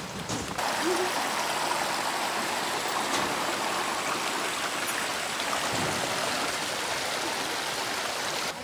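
Shallow stream running over stones: a steady rush of water that cuts off shortly before the end.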